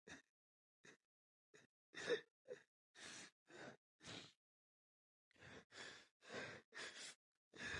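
A man crying, in a string of short, shaky sobbing breaths and gasps with a brief pause in the middle.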